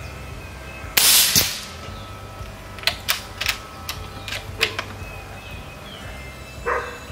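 A suppressed Umarex Gauntlet II .30 PCP air rifle fires once about a second in, a loud crack that trails off over about half a second. Between about three and four and a half seconds comes a quick run of about six sharp metallic clicks as the bolt is cycled to cock it and load the next pellet, then a short duller knock near the end.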